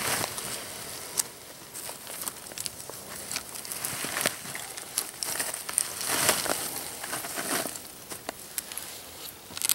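Lumps of charcoal crunching and clicking as gloved hands scrape and pack them around a plastic-wrapped turkey, with crinkling from the wrapping. The sound is an irregular crackle of small clicks, busiest about six to seven and a half seconds in.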